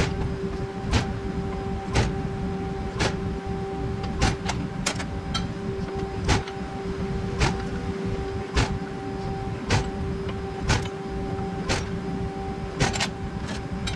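Press brake running with a steady two-tone hum, crossed by sharp clicks about once a second.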